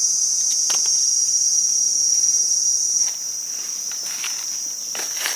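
A steady, high-pitched insect chorus, with a few faint clicks and rustles in dry leaves; it eases slightly about three seconds in.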